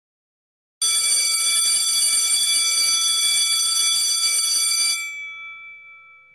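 Electric school bell ringing steadily for about four seconds, then stopping and ringing out as it slowly fades.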